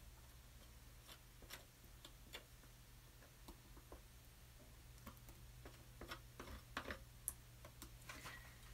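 Faint, irregular light clicks and taps of a paintbrush working paint on a palette, over a low steady hum.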